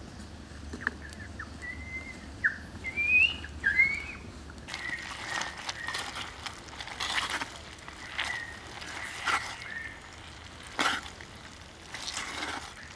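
A few short rising bird chirps in the first four seconds, then wooden chopsticks stirring pork intestine stew in a clay pot, scraping against the pot in short strokes about once a second.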